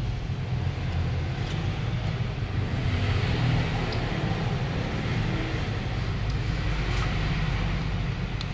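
A motor vehicle engine running steadily, a low even rumble, with a few light clicks over it.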